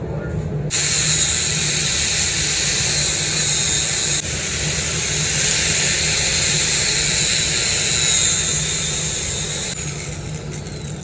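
Electric welding arc running without shielding gas, a steady frying hiss as a bead is laid. It starts about a second in, breaks for an instant around four seconds, and stops near the end.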